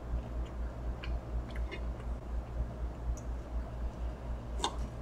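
A fork and knife clicking against a plate a few times, the loudest click near the end as food is cut, over a low hum that pulses a few times a second.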